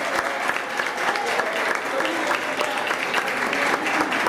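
A congregation applauding: many hands clapping in a dense, steady patter, with scattered voices among it.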